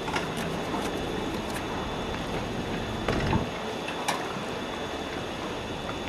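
Steady wind noise on the microphone over a sailboat's cockpit, with scattered knocks and clicks from things being handled on deck. There are several in the first second and a half, a cluster about three seconds in, and a sharp one about four seconds in.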